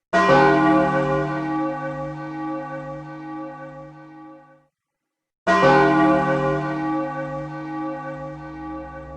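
A deep bell tolling, struck twice about five and a half seconds apart; each stroke rings and fades, then cuts off suddenly.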